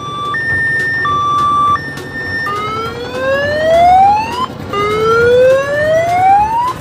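Electronic siren sounding a two-tone high-low wail, then two slow rising whoops.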